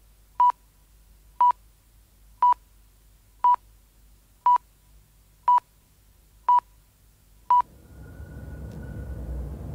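Radio time-signal pips: eight short, identical high beeps, evenly spaced one a second. After the last pip, about three-quarters of the way through, a low rumbling noise swells up.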